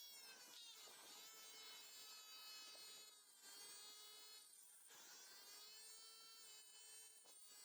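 Small electric motor of a homemade 12 V angle grinder whining faintly. Its pitch rises and falls every couple of seconds, as if the load on it changes.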